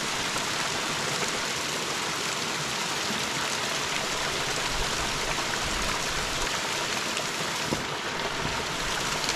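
Small waterfall running and splashing over mossy rocks: a steady, even rush of falling water.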